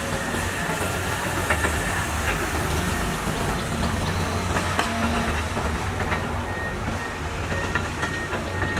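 CAT 320 hydraulic excavator at work: the diesel engine runs steadily with a low hum, and scattered metallic clanks and knocks come through over it.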